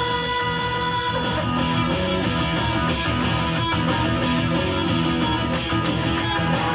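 Instrumental band music led by strummed guitar, with bass, without vocals.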